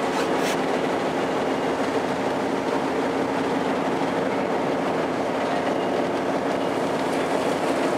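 Tour boat's engine running steadily at cruising speed: a constant drone under a rushing noise of water and wind.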